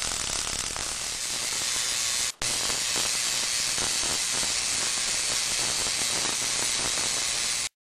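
Replica Kinraide pancake Tesla coil firing: a loud, dense crackling hiss of high-voltage sparks from its spark gap and the arc between its discharge terminals. It cuts out briefly about two and a half seconds in and stops abruptly near the end.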